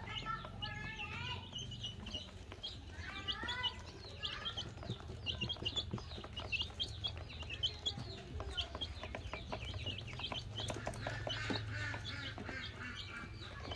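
A brood of baby chicks peeping constantly with short, high cheeps while they peck at feed, their beaks tapping rapidly against the plastic feeder and basin, the tapping thickest in the middle.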